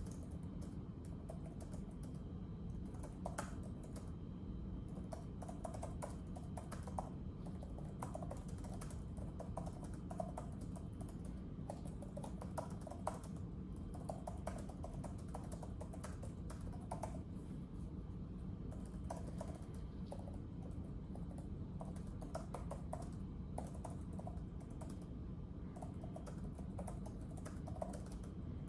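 Typing on a keyboard: irregular, uneven keystrokes with short pauses, over a steady low background hum.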